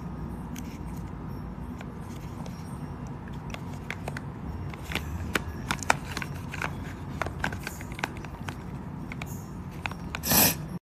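Handling noise: scattered light clicks and taps over a steady low hum, growing busier partway through, with one short, louder hiss just before the sound cuts off.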